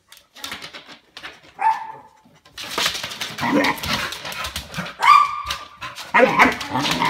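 Pit bull barking in short bursts at a pumpkin it is scared of, the loudest bark about five seconds in.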